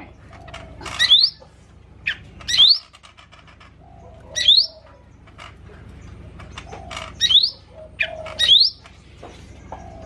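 Caged cucak ijo mini, a small green leafbird, calling. It gives about seven loud, short calls, each with a quick upward-sweeping whistle, some of them in close pairs, with a second or so of pause between most of them.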